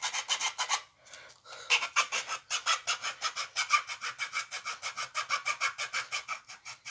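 Small hand saw cutting through wood in quick, even back-and-forth strokes, about four or five a second, with a brief pause about a second in.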